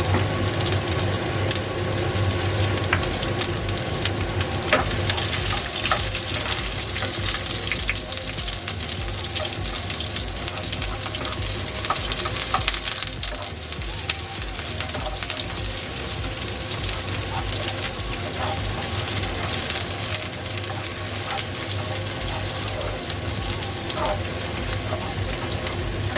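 Shallots and garlic sizzling as they fry in oil in a pan, stirred, with a utensil clicking against the pan now and then. A steady low hum runs underneath.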